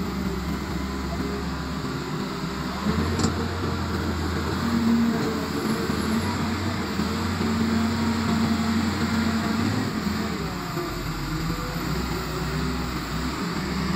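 Caterpillar hydraulic excavator's diesel engine running steadily while digging and lifting a loaded bucket. The engine note grows louder about three seconds in as it works under load, then eases off near the end.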